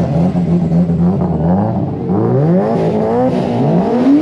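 Car engine running steadily, then revved twice from about two seconds in, its pitch climbing each time.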